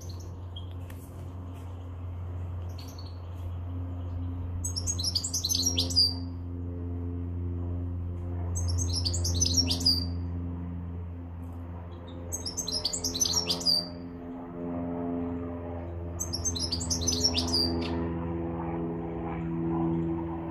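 Caged European goldfinch singing: four short twittering song phrases, each lasting about a second and spaced a few seconds apart, with a few faint single calls before the first. A low steady hum runs underneath.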